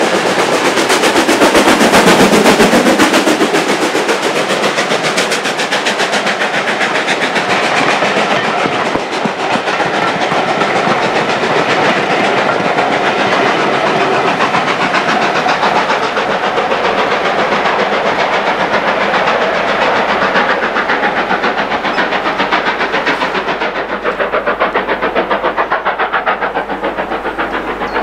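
Steam-hauled passenger train passing close by. The B1 4-6-0 steam locomotive is loudest in the first few seconds, then the coaches roll past with a rapid, steady clatter of wheels over the rail joints.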